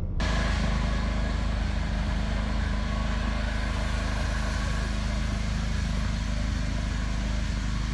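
A motor vehicle travelling along a road, heard from aboard: steady engine and road noise with a strong low rumble.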